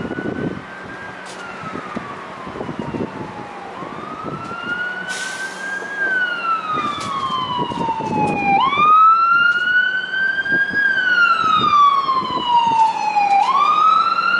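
Emergency vehicle siren on a slow wail: each cycle sweeps up quickly, then falls away over about three seconds, about three cycles in all. It grows steadily louder.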